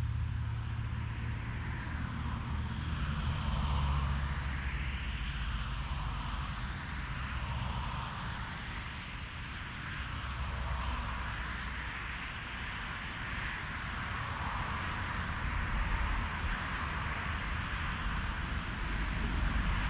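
SBB Re460 electric locomotive with double-deck coaches approaching along the line: a steady low rumble and a rail hiss with a whine that wavers up and down in pitch.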